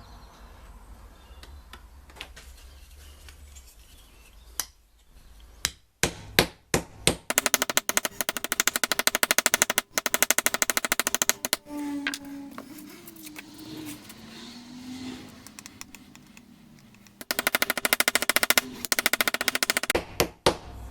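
Steel patch panel being hammered into a curve: a few separate knocks, then two long runs of fast, even hammer blows on the sheet metal.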